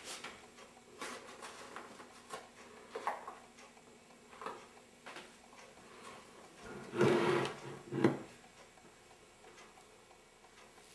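Knocks and scrapes of containers and a spoon on a wooden tabletop and a plastic bowl while flour and semolina are measured out for batter, with two louder bursts of handling noise about seven and eight seconds in.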